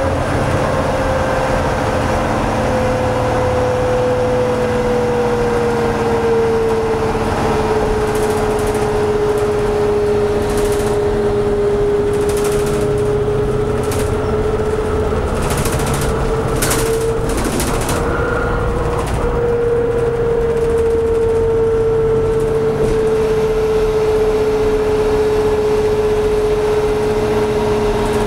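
Inside a New Flyer DE60LF diesel-electric hybrid articulated bus under way, with its Caterpillar C-9 diesel and GM-Allison EP50 hybrid drive running. A strong steady whine sits over a low rumble and sags and rises slightly in pitch. A few brief clicks and rattles come in the middle stretch.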